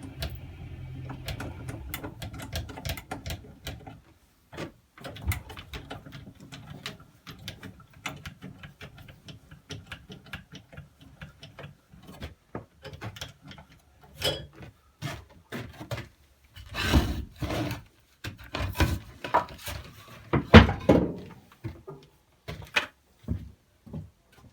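Workshop handling noises: a steady low hum with rapid ticking for the first few seconds, then irregular clicks and knocks, with the loudest thumps about 17 and 20 seconds in, likely from getting the tractor up onto a service lift.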